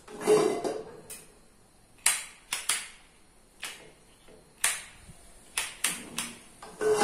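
A handheld piezo gas lighter clicking about eight times at a gas stove burner before the flame catches. A metal frying pan scrapes with a brief ring across the iron grate just after the start and again at the end as it is moved off and back onto the burner.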